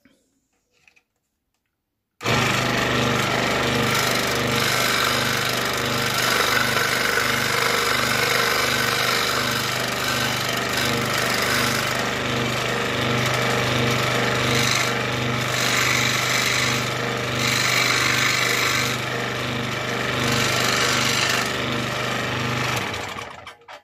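Scroll saw running with a Pegas number 5 spiral blade, nibbling back and forth along the cut edge of 3 mm plywood to trim it up to the line. The saw starts about two seconds in, runs steadily with a loud hum, and stops just before the end.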